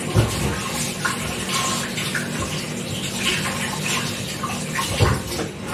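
Kitchen tap running steadily while raw chicken is rinsed under it, with a few soft knocks.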